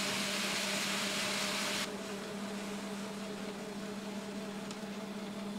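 Concrete mixer truck running at a steady speed, a constant hum. A loud hiss over it stops suddenly about two seconds in.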